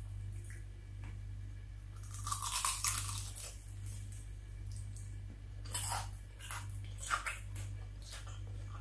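A bite into the crispy deep-fried skin of a chicken drumstick about two seconds in, a burst of crackling crunch lasting about a second, followed by several short crisp crunches of chewing. A steady low hum runs underneath.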